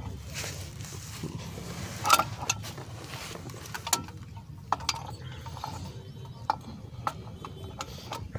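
Scattered metal clicks and clinks as a Tata Ace Gold's new clutch disc and pressure plate are handled on an alignment shaft and set onto the flywheel. The loudest clink comes about two seconds in, over a low steady hum.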